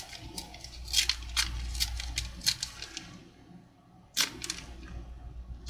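Plastic wrapper of a Pokémon card pack crinkling and crackling in the hands as it is opened: a run of small sharp crackles, a quieter lull past the middle, then a louder crackle about four seconds in.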